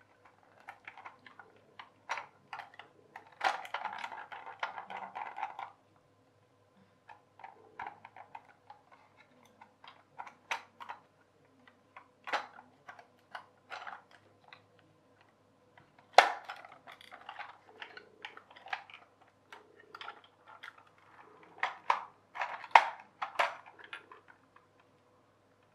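Clear plastic toy train housing and its plastic gears being handled and fitted together: irregular plastic clicks and taps, a run of quick rattling clicks about four seconds in, and sharp snaps about sixteen and twenty-three seconds in.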